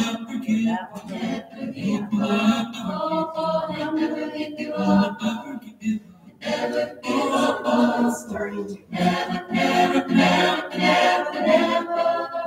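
A choir singing a cappella, played back from a video on the room's TV.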